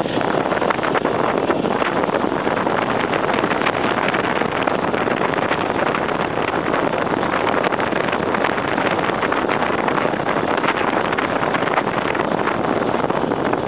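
Off-road motorcycle riding along a gravel road: engine and tyre noise buried under a steady rush of wind on the microphone, loud and unchanging.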